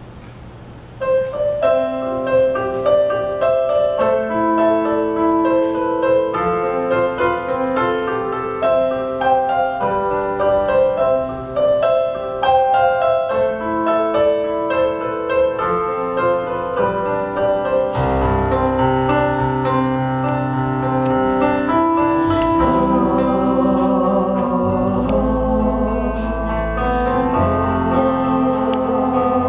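A live band starts a slow song: piano notes on a stage keyboard begin about a second in, bass and drums join about eighteen seconds in, and the fuller band with cymbals plays from about twenty-two seconds.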